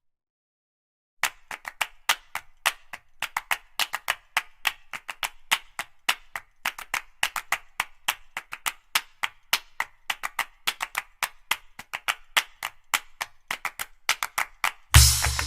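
Percussion-only passage of background music: after about a second of silence, a quick run of sharp clap-like clicks, several a second, until the full drum beat returns near the end.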